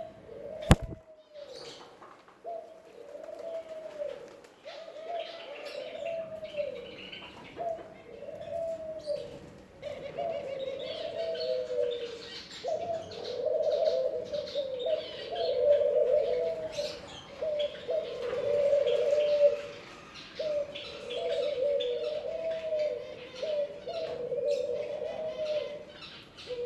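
Pigeon cooing over and over in a low, wavering run with only short pauses, mixed with fainter, higher bird chirps. A sharp click sounds about a second in.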